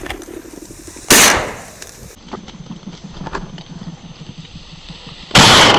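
Two shotgun shots about four seconds apart, each very loud and trailing off over about a second.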